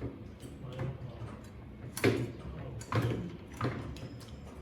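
A series of sharp knocks and clunks of hard objects being handled, spaced about a second apart, the loudest about two seconds in.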